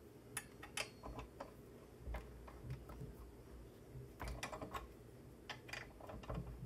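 Hex key turning a screw in a metal monitor-mount bracket, making faint, irregular clicks and ticks as it is worked round to tighten it, with a quicker run of clicks past the middle.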